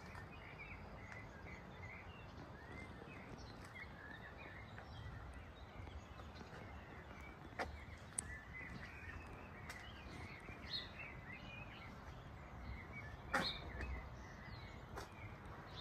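Outdoor ambience of small birds chirping here and there over a steady faint hiss, with a few sharp clicks, the loudest about 13 seconds in.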